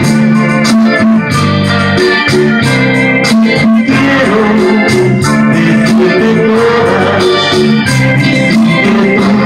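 Karaoke backing track playing an instrumental break: an electronic keyboard melody over held chords and bass.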